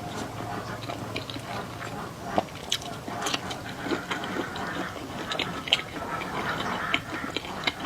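Close-up chewing and biting of food, with irregular wet clicks and smacks of the mouth.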